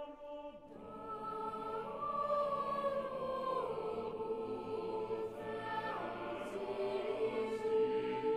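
Background music: voices singing slow, held notes that shift pitch now and then.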